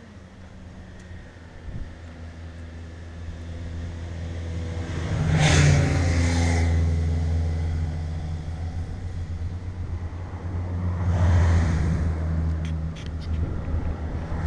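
Motor vehicles passing close by: an engine rumble builds up to a first pass about five and a half seconds in, its pitch dropping as it goes by, and a second pass about eleven seconds in.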